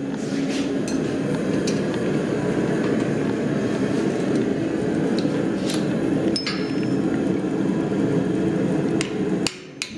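Gas forge burner running with a steady roar, with occasional metallic clinks of blacksmith's tongs on hot steel. Near the end the roar drops away and a few sharp hammer strikes ring out as a chisel is driven into hot steel on the anvil.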